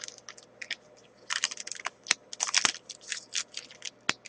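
Trading-card pack wrapper crinkling and tearing as a pack of hockey cards is opened and handled, in a string of short, irregular crackles.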